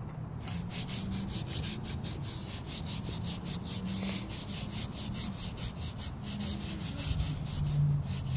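A cloth rubbed quickly back and forth over a car's textured interior door panel, scrubbing off crayon with lemon oil: a steady run of short swishing strokes, several a second.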